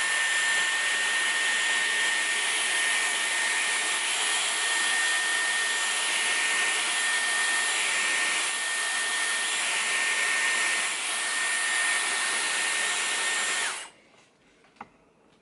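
Dyson Airwrap hair styler running on its highest airflow and heat setting: a steady rush of air with a high whine, cutting off suddenly near the end.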